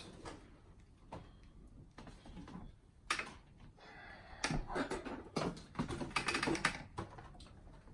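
Boxed Funko Pop figures being set down and stacked on a desk, a string of light, irregular knocks and taps of cardboard boxes, busiest in the second half, with a little packaging rustle.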